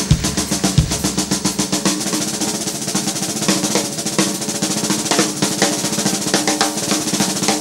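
Jazz drum kit solo: fast, dense strokes and rolls on the snare drum, with a couple of bass drum thuds in the first second.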